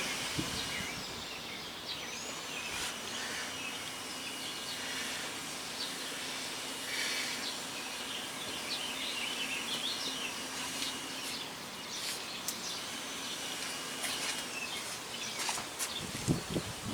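Quiet outdoor ambience: a steady background hiss with faint bird chirps, and a few soft knocks near the end.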